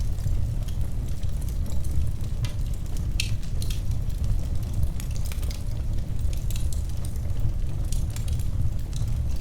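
Wood fire in a fireplace crackling steadily: a low, even rumble of burning with many small, irregular snaps and pops, one sharper pop about three seconds in.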